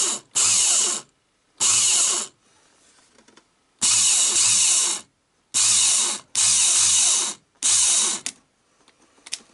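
Honda TRX200SX OEM electric starter motor, freshly fitted with new brushes, spinning with no load off a jump pack in about seven short bursts. Each burst lasts under a second to about a second and starts and stops abruptly. It spins up each time, which the owner takes to mean the starter is fixed.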